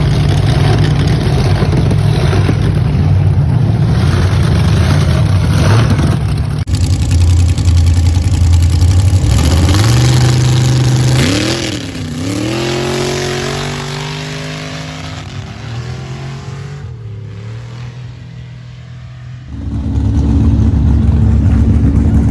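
Drag racing car's engine running loud and steady, then accelerating hard: its pitch climbs, dips once at a gear change, climbs again and fades as the car pulls away. Near the end a loud, steady engine sound returns close by.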